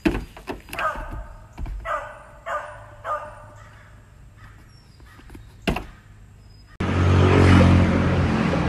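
An animal gives four short calls, each falling slightly in pitch, followed by a sharp knock. Near the end a loud steady rumble starts suddenly: skateboard wheels rolling on asphalt with a dog riding.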